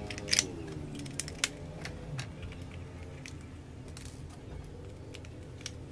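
AA batteries being pressed into the plastic battery compartment of a toy car's remote control handset: a series of sharp plastic clicks and small rattles, a few seconds apart, the loudest two in the first second and a half.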